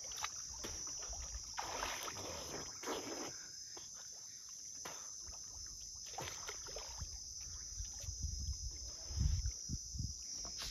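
Water sloshing and splashing around a man wading in a river, loudest about two seconds in, over a steady high drone of insects.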